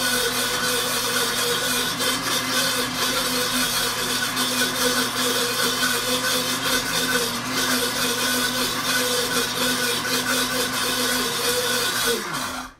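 Pampered Chef Deluxe Cooking Blender motor running steadily as it grinds dry roasted peanuts into peanut butter. Near the end the motor winds down in pitch and stops.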